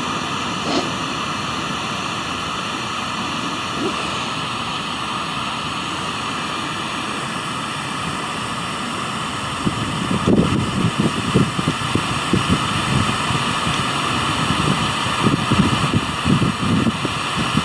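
Steady static hiss from a ghost-box app on a smartphone. From about ten seconds in, choppy, broken low fragments of sound cut in and out over the hiss.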